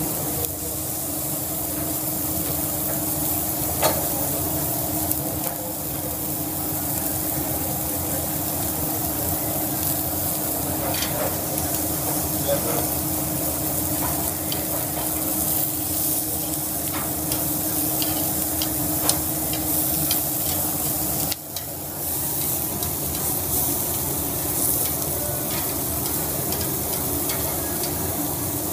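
Steaks and green chili peppers sizzling steadily on a hot grill grate. A few sharp clicks of metal tongs handling the meat come through, and a steady low hum runs underneath.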